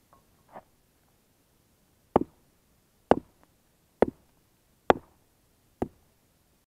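Hammer striking a foundation stone five times, about one blow a second, knocking chips and dust off it.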